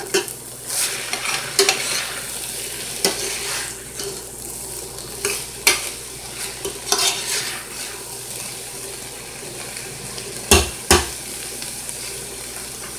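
Metal slotted spoon stirring and scraping browned ground beef and sausage in a pot while the meat sizzles steadily. Near the end the spoon knocks sharply twice against the pot.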